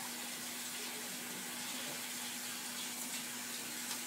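Kitchen tap running in a steady hiss, over a faint steady low hum.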